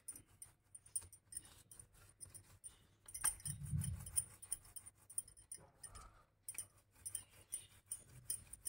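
Oiled hands kneading and pressing a soft methi thepla dough on a wooden table: faint sticky pats and squelches with many small clicks and light metallic clinks of finger rings. The dough is pressed down with a dull thump about three and a half seconds in.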